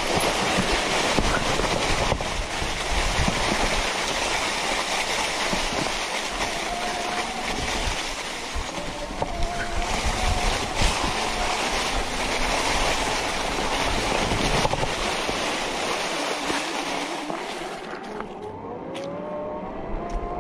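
E-bike fat tires rolling over dry leaves and dirt on a trail, with a steady rush of ride and wind noise. Near the end a faint whine rises in pitch as the electric motor speeds the bike up.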